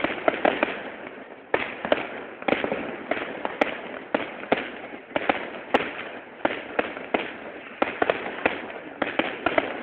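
Fireworks going off one after another: sharp bangs a few times a second over a constant crackle, with no break.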